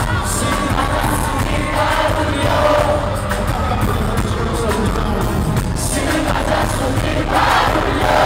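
Live band music played loud through a concert sound system, with singing voices and a crowd singing along.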